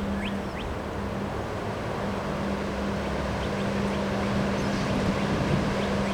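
Wind blowing hard in a snowstorm, a steady rushing noise, with a steady low hum under it and a few short rising bird chirps in the first second.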